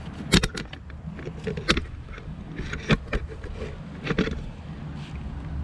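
Clicks and knocks of a Frabill folding landing net's frame and handle as it is handled and turned over, several separate clacks over a steady low rumble.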